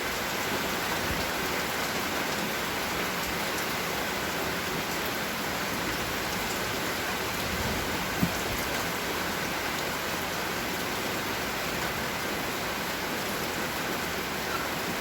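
Steady rain falling and pattering on surfaces, with one short knock about eight seconds in.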